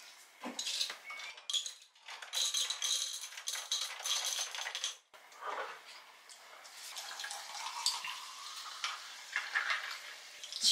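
Sparkling water poured from a plastic bottle into a tall glass, in two stretches; in the later one the pitch rises as the glass fills.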